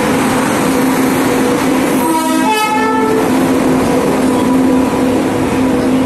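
Goods train passing close by: an electric locomotive followed by high-sided open box wagons, with a steady hum and the rolling rumble of wheels on rail. A brief pitched horn note sounds about two seconds in.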